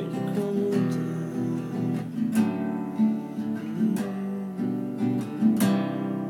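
Acoustic guitar strummed in slow chords, with a strong strum about every second and a half. The last chord, near the end, is left to ring out as the song finishes.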